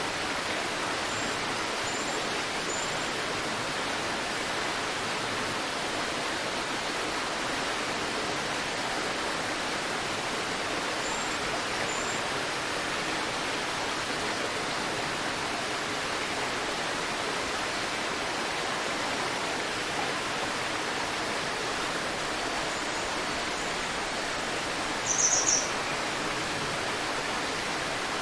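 River water flowing with a steady rush. Small birds chirp over it: a few faint high chirps in the first few seconds and again around eleven seconds in, and one brief louder high trill near the end.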